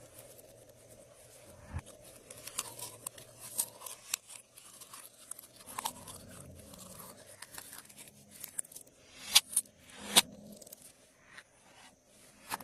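Glossy slime being worked by hand with mixed-in add-ins, giving irregular sticky pops and crackles, with two louder pops a little after 9 seconds and about 10 seconds in.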